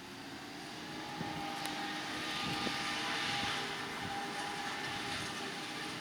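Heavy farm machinery at work: a diesel engine running with a steady whine, growing louder as it comes closer, loudest about halfway through, then easing off a little.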